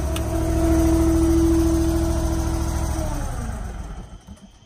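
Dyna firewood processor running steadily, then shut off about three seconds in, its pitch falling as the engine and hydraulics wind down to a stop.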